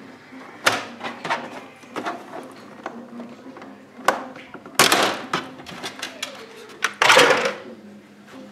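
Plastic housing panels of a Krups espresso machine being pried and pulled off: a string of sharp clicks and snaps from the clips, with two longer scraping rattles about five and seven seconds in as the panel and top cover come away.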